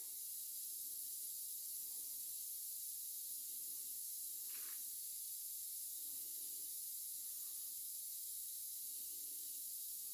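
Steady high-pitched hiss of background noise, with a few faint soft sounds and one brief faint one about halfway through.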